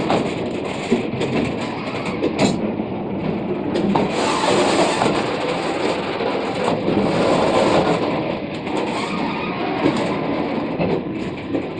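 Loaded freight train's covered box wagons rolling past close by: steel wheels running on the rails with a steady rumble and rattle, and scattered sharp knocks as the wheels and bogies pass.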